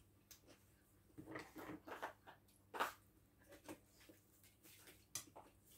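Faint, scattered small sounds of eating at a table: chewing and fingers working at food, with a few soft clicks.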